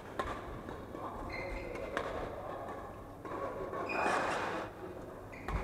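Badminton rally: sharp racket-on-shuttlecock hits, one just after the start and another about two seconds in, with short squeaks of court shoes on the wooden floor between them.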